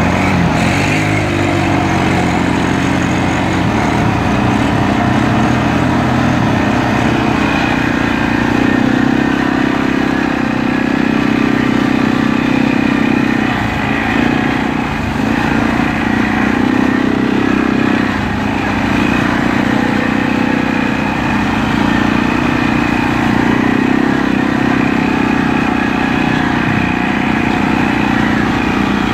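Arctic Cat ATV engine running steadily as the quad crawls through a muddy ditch, with a few brief dips in the engine note around the middle.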